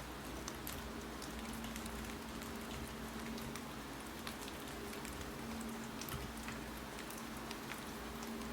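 Steady rain falling, with scattered sharp, irregular clicks of typing on a keyboard over a faint steady low hum.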